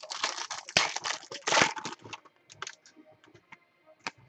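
A Bowman Chrome foil card pack crinkling and being torn open, about two seconds of dense crackling, then a few short clicks and flicks as the baseball cards are slid through the hands.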